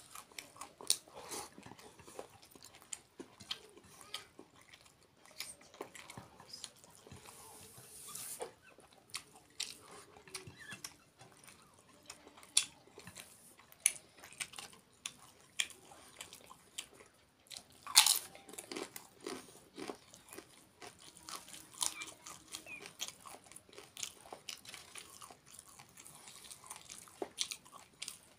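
Close-up eating sounds of a person eating rice, chicken curry and papad by hand: chewing and biting with repeated short crunches and clicks, the sharpest and loudest about two-thirds of the way through.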